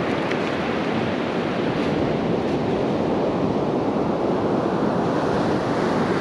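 Sea surf washing on the beach with wind blowing across the microphone, a steady rushing noise with no clear breaks.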